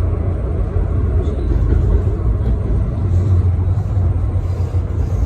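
Road traffic running steadily: a loud, even, low rumble.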